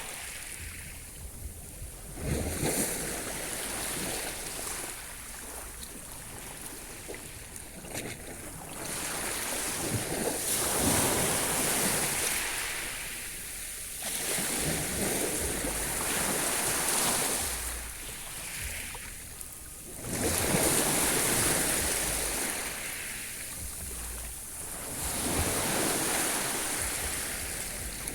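Sea waves washing onto the shore, the surf swelling and falling back every four to five seconds.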